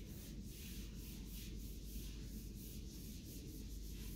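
Felt whiteboard eraser scrubbing across a whiteboard in quick back-and-forth strokes, about three a second, a soft rhythmic rubbing.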